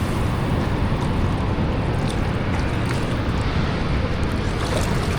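Steady rush of water pouring through a river dam spillway, mixed with wind buffeting the microphone.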